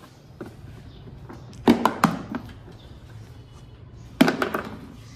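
Knocks and clatter of a screwdriver and hands against the plastic under-seat storage box of an electric scooter as its screws are undone, in two short clusters, one just under two seconds in and one about four seconds in, with a few faint clicks between.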